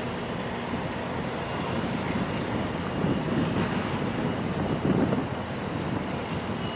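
Steady low rumble of a large container ship under way, with irregular gusts of wind buffeting the microphone.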